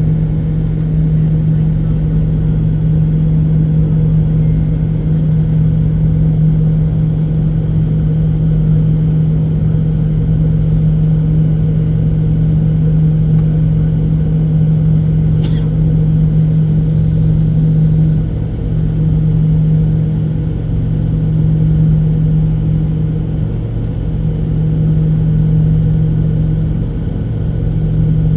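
Steady low hum of a Boeing 737-800's CFM56 engines and airframe heard inside the passenger cabin, dipping briefly a few times in the second half. A faint click about halfway through.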